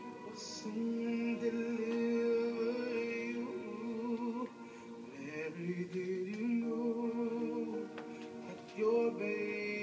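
Slow music of long, held notes with a singing voice, playing as accompaniment to a dance.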